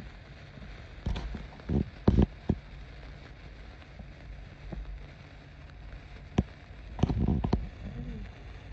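Sparklers fizzing and crackling, with several short, louder knocks and thumps: one about a second in, a cluster around two seconds in, and more near the end.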